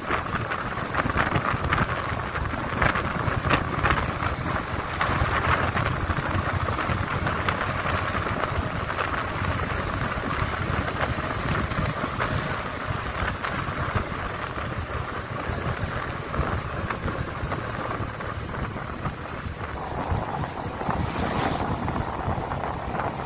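Steady wind rush and buffeting on the microphone of a moving motorcycle, with road noise underneath.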